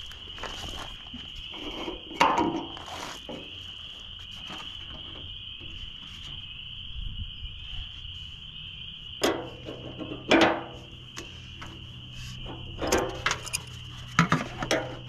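Hand tools clinking and knocking on metal parts of a small generator, a few sharp knocks about two seconds in, twice more midway and several in quick succession near the end, over a steady high drone of insects.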